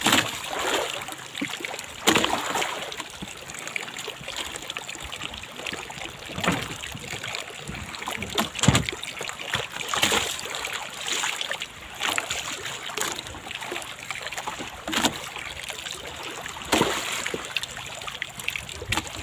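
Water sloshing and splashing against a small fishing boat at sea, with irregular knocks on the hull every second or two.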